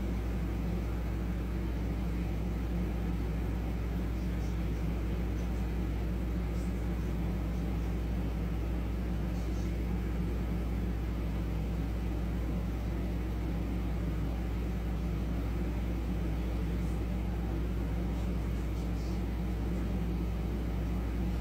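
A steady low hum, unchanging throughout, with a few faint light ticks over it.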